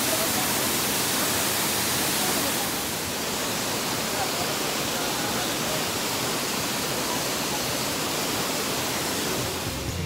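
A waterfall pouring into a rock pool: a steady, even rush of falling water.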